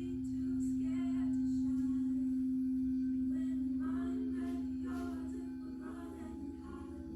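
Singing bowl ringing with one steady low tone; about halfway through, its overtones begin to waver.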